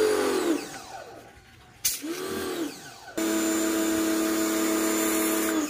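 Geelaag portable electric pressure washer's motor and pump running in short stints as the trigger is squeezed and released. A steady whine winds down about half a second in, starts and stops briefly near two seconds, then runs steadily from about three seconds and cuts off sharply just before the end.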